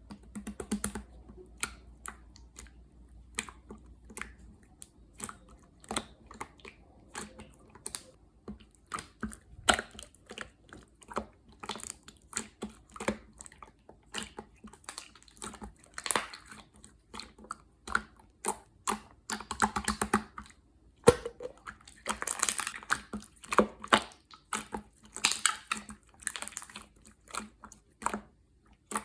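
Hands playing with slime: an irregular run of sharp clicks and pops as it is pressed and folded, with a few longer squishing, crackling stretches in the second half.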